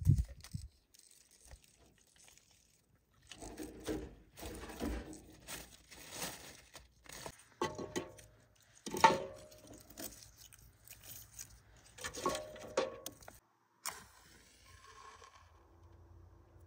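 Charred firewood being handled and put into a metal stove: dry wood scraping, rustling and clattering, with a dull thump at the very start and several knocks that ring briefly, the loudest about nine seconds in.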